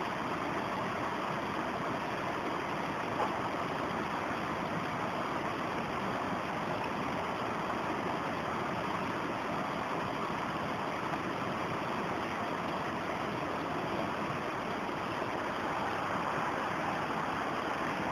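Shallow rocky stream running steadily: an even, unbroken wash of flowing water.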